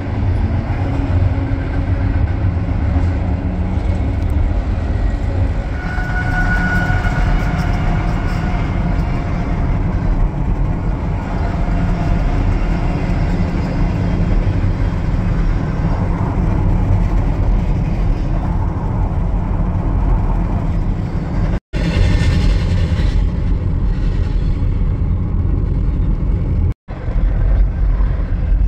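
Long double-stack intermodal freight train rolling past: a steady low rumble of wheels on rail, with a faint high squeal around six seconds in. The sound breaks off abruptly twice near the end.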